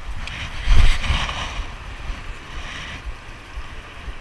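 Wind rumbling on a body-worn microphone, with a loud thump about a second in and a hiss that swells and then fades over the next couple of seconds, as a fishing rod is swung through a cast.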